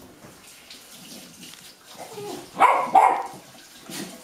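Golden retriever puppies, about eight weeks old, barking with impatience for their food: two sharp yaps in quick succession about two and a half seconds in, after a quieter stretch, and a smaller one near the end.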